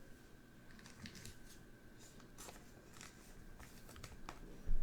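Trading cards being handled and slid one behind another in the hands: faint scrapes and light clicks, with a louder low thump near the end.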